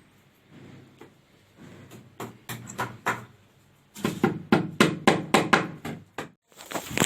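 A rapid series of sharp knocks or taps, about four a second, starting about four seconds in after a few softer scattered taps, with a brief pause just before the end.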